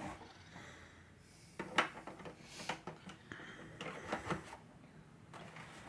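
Hard plastic toy parts being handled and fitted together, with a few sharp clicks and knocks, a cluster of them about four seconds in, over light rustling.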